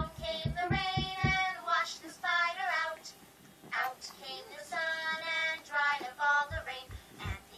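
Children's sing-along song playing from a portable DVD player: child voices singing a melody in short phrases, with a light low beat under the singing at the start and again near the end.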